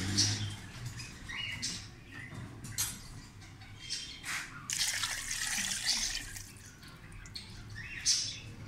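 Water being poured into an aluminium pressure cooker over beef trotters, splashing unevenly, fullest about halfway through.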